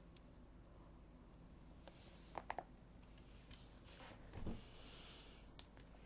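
Quiet room with scattered faint clicks, three quick short squeaks about two and a half seconds in and a dull thump a couple of seconds later.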